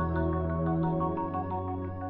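Background music: soft, steady chords with light mallet-like notes over a held bass, fading out near the end.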